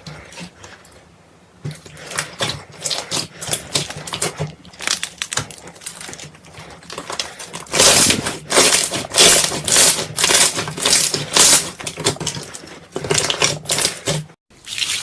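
Slime being squeezed and pressed by hand, giving off dense, irregular crackles and pops of trapped air. The crackling is loudest a little past the middle.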